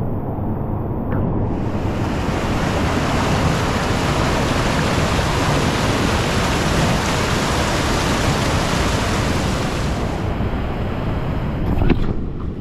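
River rapids rushing over and between boulders: a steady white-water noise, duller for the first second or so. A single sharp knock near the end.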